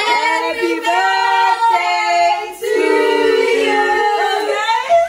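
Women singing a melody, with long held notes and a short break about halfway through.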